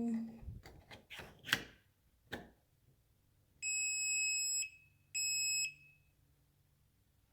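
Plastic clicks and knocks as the battery pack is fitted back into a Kwikset smart lock, then the lock gives two high electronic beeps, a long one and a shorter one, as it powers up on fresh batteries.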